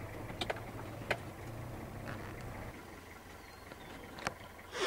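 A vehicle's engine idling with a steady low hum that fades out a little over halfway through, with a few sharp clicks over it.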